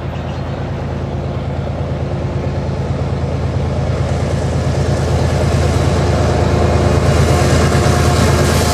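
A lash-up of six BNSF diesel-electric locomotives working hard upgrade, their engines a steady deep drone that grows louder as the train approaches.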